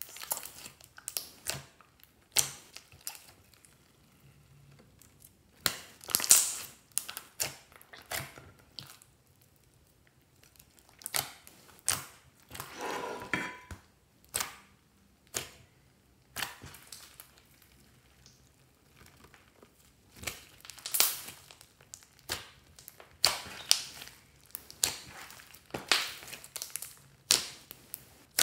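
Glossy slime mixed with makeup and clay being squeezed and kneaded by hand, giving irregular clusters of sticky pops and crackles with short pauses between handfuls.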